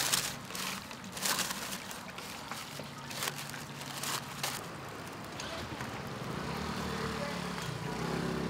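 A paper bag rustling and crinkling as fried snacks are scooped and tipped into it, in uneven crackles. About halfway through a vehicle engine hum comes in and grows steadily louder.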